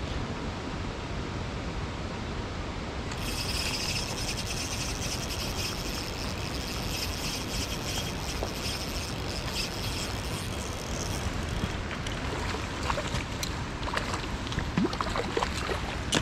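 Steady rushing of river water. A higher whirring hiss joins in about three seconds in and stops about eleven seconds in, and a few small ticks and knocks follow near the end.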